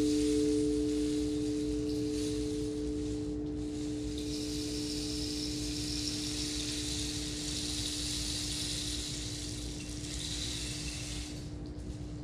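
Two steady ringing tones, one low and one a little higher, held as a meditation drone and slowly fading. A soft hiss sits above them, swelling about four seconds in and dropping away near the end.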